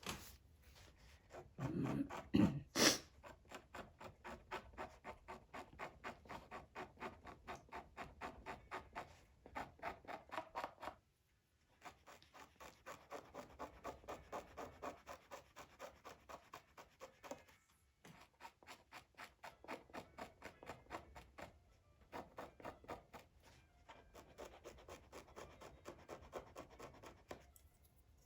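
Quick, even rubbing strokes on Torah parchment, about four a second, stopping briefly a couple of times. There is a louder knock near the start.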